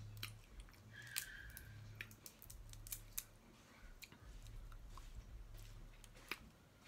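Snow crab leg shells being broken open: scattered sharp snaps and clicks a second or so apart, over a low hum.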